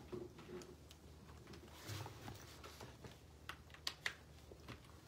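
Quiet room tone with a few faint, scattered clicks and taps, most of them bunched about three and a half to four seconds in.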